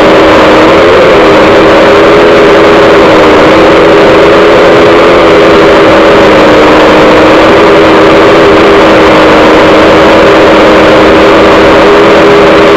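DJI F550 hexacopter's six electric motors and propellers droning steadily, heard from a camera mounted on one of its arms right beside a motor, so it is loud with rushing air noise. The whine wavers slightly in pitch a few times as the craft hovers.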